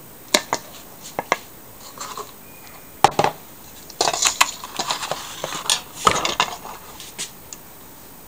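A spatula clinking and scraping against a metal mixing bowl and disposable aluminium foil pans while thick cornmeal batter is scooped and spread. A few sharp clicks come in the first second and a half and a single knock about three seconds in, then a dense run of scrapes and clinks.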